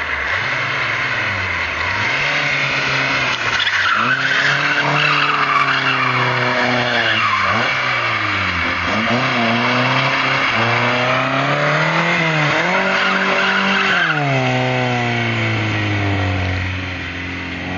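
Classic Lada sedan's four-cylinder engine revving up and down again and again while the tyres squeal as the car slides. The squeal is loudest from about four seconds in until about fourteen seconds in; after that the engine holds a steadier, falling note.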